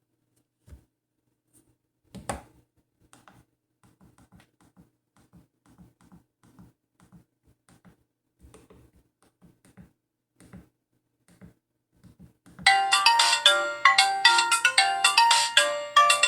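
Faint scattered clicks, one sharper than the rest, then, about three-quarters of the way through, an Alcatel 3025 mobile phone's speaker starts loudly playing one of its default polyphonic ringtone melodies, quick bright notes over a lower accompaniment.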